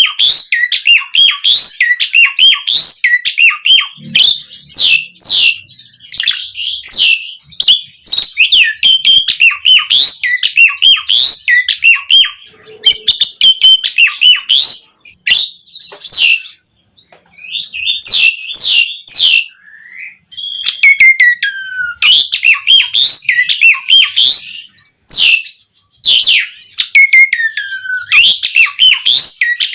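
Javan pied starling (jalak uren) singing: a fast, varied, unbroken stream of sweeping whistles, chirps and squeaky notes, with a brief pause a little past halfway.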